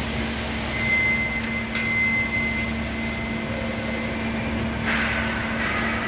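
Steady hum of the band saw line's machinery running, with a thin high whine for about two seconds starting about a second in.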